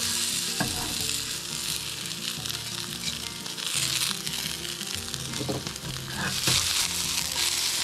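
Chopped onion and vegetables hitting a skillet of smoking-hot sesame oil and sizzling, starting suddenly as they go in. Later a spatula stirs them in the pan.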